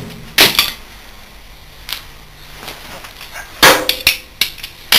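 Metal clanks and knocks as a scroll compressor part is handled and set down on a sheet-metal cabinet top: a few sharp separate knocks, with the loudest, a short ringing clank, about three and a half seconds in.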